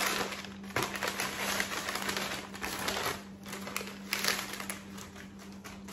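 Brown kraft packing paper crinkling and rustling in irregular bursts as it is unwrapped from a candle.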